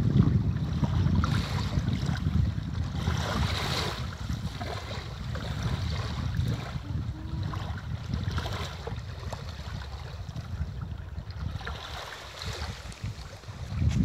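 Small sea waves lapping and washing on a shallow sandy shore, with a rush of splashing every few seconds. Wind rumbles on the microphone underneath, strongest at the start and again near the end.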